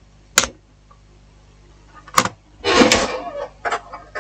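Handling noise from an opened smartphone being moved and set down on a workbench: a few sharp plastic clicks and knocks, with a brief louder rustle nearly three seconds in.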